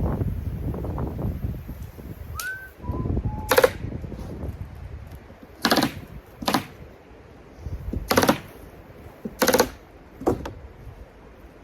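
Stapler firing staples into ice and water guard roofing underlayment: six sharp strikes at uneven intervals, a second or two apart, starting a few seconds in. Wind rumbles on the microphone at the start.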